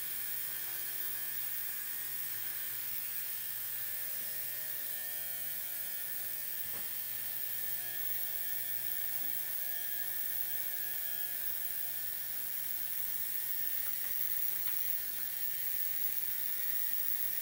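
Steady electrical hum with a hiss over it. A few faint clicks and rattles come from a chainsaw's steel chain and bar being handled as they are taken off.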